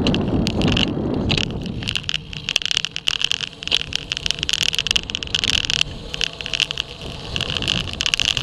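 Road bike descending at speed, filmed from a camera mounted on the bike: wind buffeting the microphone, heaviest in the first second, then rapid rattling from the bike over the tarmac and a high buzzing that comes and goes.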